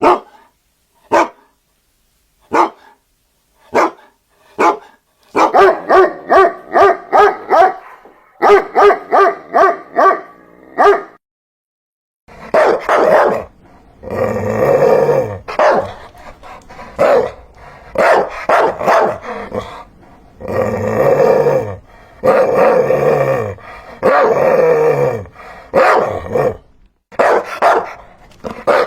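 Dogs barking: a few single sharp barks spaced about a second apart, then a fast run of barks about three a second. After a brief pause come longer, deeper barks in quick succession.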